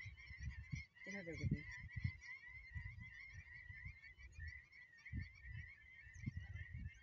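Wind rumbling unevenly on the microphone, under a steady high warbling chirr, with one short honk-like call about a second in.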